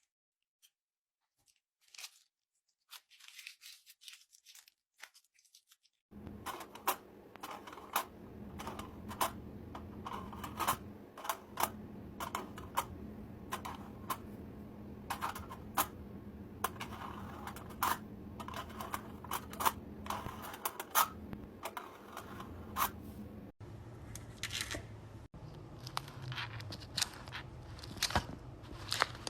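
Many short, sharp clicks and crackles at an irregular pace over a steady low hum, after a few seconds of sparse faint clicks. The background changes abruptly about two-thirds of the way through.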